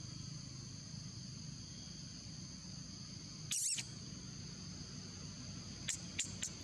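Steady drone of forest insects, holding two high, even tones. About three and a half seconds in comes a brief high chirping call, and near the end four quick high chirps.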